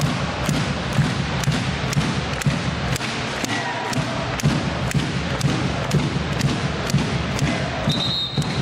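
Arena crowd noise with a steady rhythmic beat of sharp thuds, about two or three a second, and a referee's whistle blown briefly near the end.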